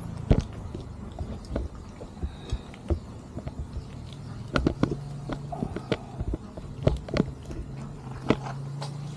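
Several kittens eating together, with irregular small chewing and biting clicks.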